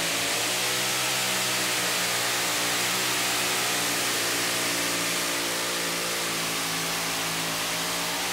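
Supercharged engine of a two-wheel-drive pulling truck running flat out at a steady high pitch while dragging a weight-transfer sled, with a strong hiss over the engine note.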